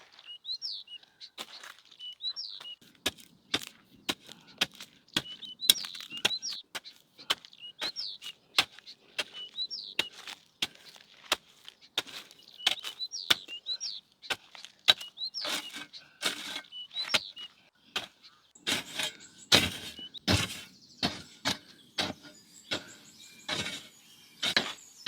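A small bird chirping over and over, short sharp calls about once a second, over a scatter of clicks and knocks. Louder knocks come thickly in the last few seconds.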